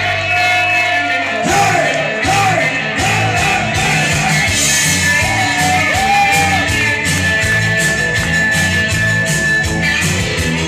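Live band playing loud music. A full beat with bass and drums comes in about a second and a half in, under a melody line that slides up and down.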